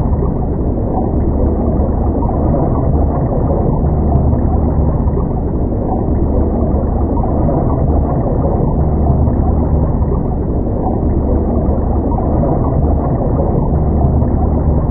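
Underwater ambience sound effect: a steady, muffled low rumble of water with a faint gurgle.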